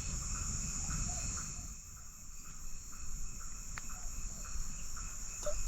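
Night insects, crickets, trilling in a steady, continuous high-pitched drone, over a low rumble.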